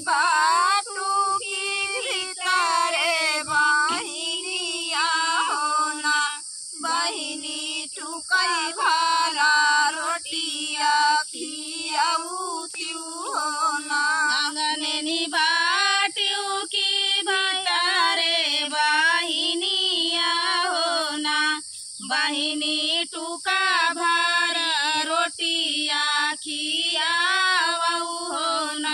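A woman's voice singing a village rice-transplanting folk song (dhaan ropai kajari geet) unaccompanied. It runs in long melodic phrases with two brief breaks for breath, about a third of the way in and again about three quarters through.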